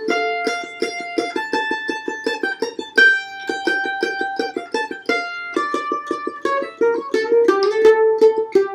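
F-style mandolin played solo in a Venezuelan waltz: rapid, even repeated picking on the lower strings, with melody notes ringing out above.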